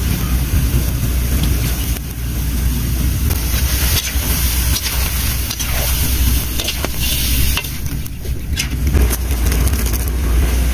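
Whole frogs cooking in a steel wok over a wood fire, sizzling with water added, and a metal spatula stirring them with a few sharp scrapes and clicks against the pan. A steady low rumble runs underneath.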